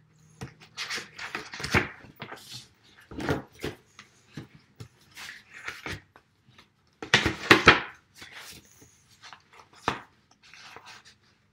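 Pages of a sketchbook being turned and handled: irregular paper rustling and flapping, with the loudest turn about seven seconds in.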